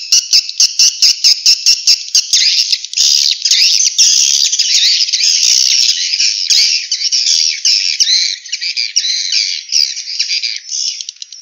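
Swiftlet calls: a run of sharp clicks, about five a second, giving way after two seconds or so to dense, high twittering chatter that thins out near the end.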